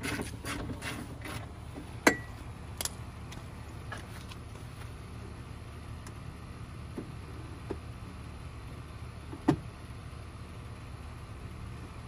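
Hands working inside a Tesla Model S door shell with the trim panel off. A few rustling scrapes come first, then scattered sharp clicks and knocks of parts against the door: the loudest about two seconds in, another about two-thirds of the way through. A steady low rumble runs under it all.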